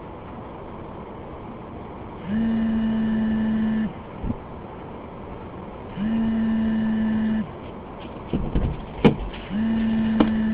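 Mobile phone buzzing with an incoming call: three long, even buzzes about two seconds apart, with a few knocks between the second and third.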